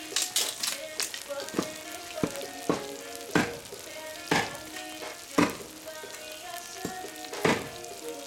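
Meat and onions frying in hot oil in a cast-iron kazan: a steady sizzle with sharp, irregular pops and spatters, about one or two a second. Faint background music runs underneath.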